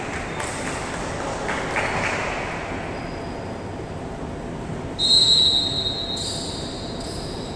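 Volleyball referee's whistle: one loud, steady, high blast about five seconds in, lasting about a second, then a fainter, slightly higher whistle tone held until near the end, over the general noise of a gym. It is the signal for the serve, with the receiving players set in their ready stance.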